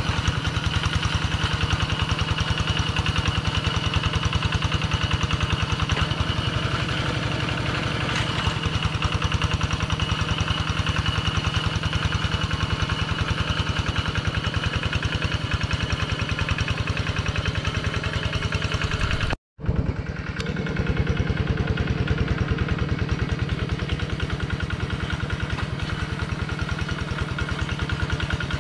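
Single-cylinder diesel engine of a two-wheel hand tractor running steadily with a fast, even chugging while it plows a flooded rice paddy. The sound cuts out for a moment about two-thirds of the way through, then carries on.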